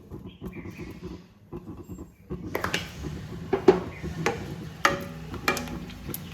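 Milk and cocoa powder being stirred in a pan on the stove. From about two and a half seconds in, the utensil knocks against the pan roughly every half second.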